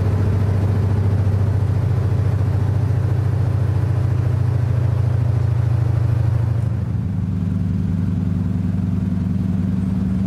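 De Havilland DHC-2 Beaver floatplane's radial engine and propeller running hard, heard from inside the cabin during the takeoff run on the water: a loud, steady low drone. A little after six seconds in the pitch of the drone shifts a step higher and it gets slightly quieter.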